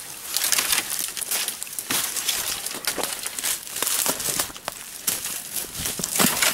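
Footsteps crunching through dry leaf litter and brush, with an irregular run of crackles and rustles from leaves and twigs underfoot and branches brushing past.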